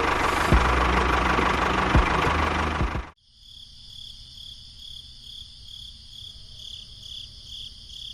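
Small engine running loudly with a low hum and two sharp clicks, cutting off abruptly about three seconds in. A faint, steady high-pitched tone follows, pulsing a couple of times a second.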